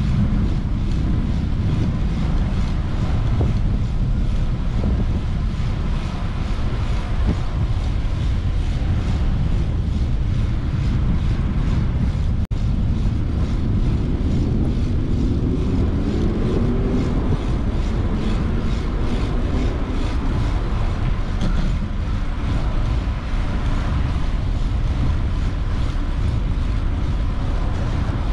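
Steady wind rumble on the action-camera microphone during a bicycle ride, over the sound of city traffic. About halfway through, a passing vehicle's engine rises in pitch as it accelerates.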